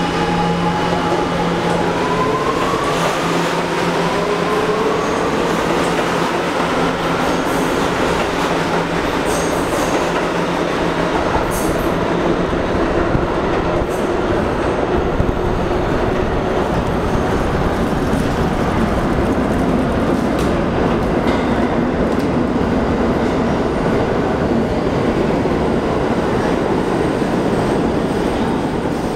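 Kawasaki R211A subway train pulling out and accelerating away: the whine of its traction motors rises in pitch over a steady rumble and rattle of wheels on rail, which carries on as the train runs into the tunnel.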